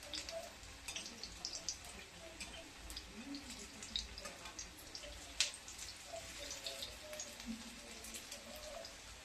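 Onion and cauliflower pakoras frying in hot oil: a light crackle of scattered small pops and ticks, with one sharper pop about five seconds in.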